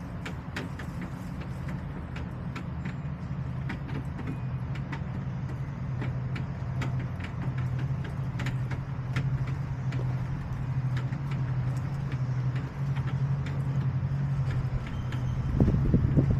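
Low, steady hum of an engine, slowly growing louder, with scattered light clicks over it and a few stronger bursts near the end.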